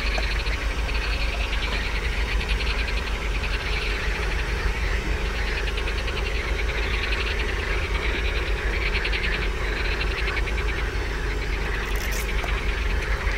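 An evening chorus of rapid trilling animal calls, coming in trains a second or two long, over a steady low rumble.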